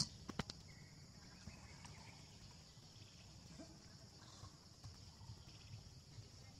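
Quiet outdoor ambience with a steady high-pitched insect drone, and a few sharp clicks in the first half second.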